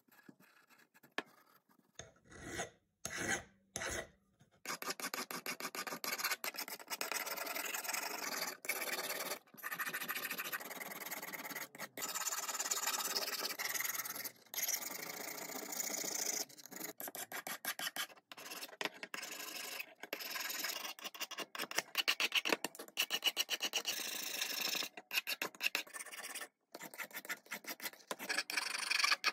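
Hand file rasping across the steel shaft of an old screwdriver in quick, repeated back-and-forth strokes. The first few seconds hold only a few brief scrapes before the steady filing sets in.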